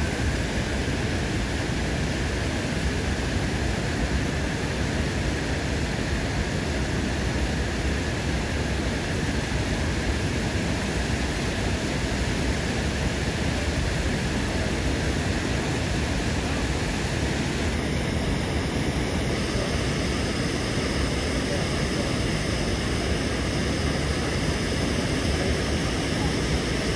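Steady rushing of the Brooks River's rapids and falls, an even noise with no breaks.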